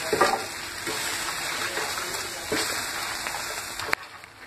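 Thick spiced masala paste sizzling and spluttering in a non-stick pan while a wooden spatula stirs it, with a few light knocks of the spatula against the pan. The sizzle dies down about four seconds in.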